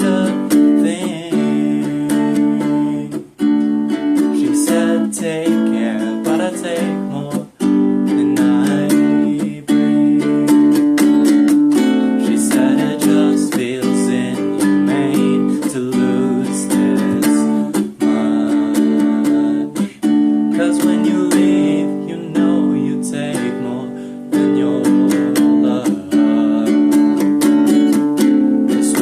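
Acoustic guitar strumming chords in a steady rhythm, an instrumental passage of a pop song played on acoustic guitar.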